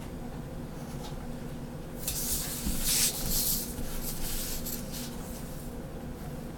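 Pen and ruler scratching and rubbing against a sheet of drawing paper, in a scratchy burst of about three and a half seconds that starts about two seconds in, over a steady low hum.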